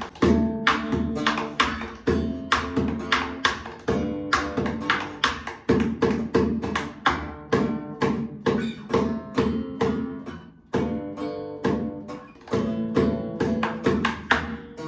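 Music: a rhythmic piece of plucked and strummed acoustic guitar.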